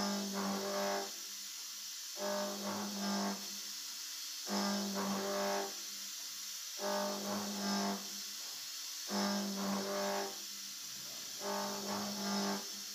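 CNC milling machine's ball-nose end mill cutting a rounded slot in a metal block. It gives a pitched hum with overtones in passes about a second long, one every two seconds or so, over a steady hiss.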